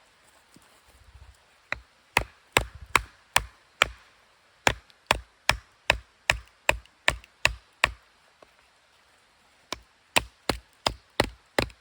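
Steady, rhythmic strikes of a tool into wood at about two and a half a second, in runs broken by a short pause and then a longer gap of nearly two seconds before the strikes resume.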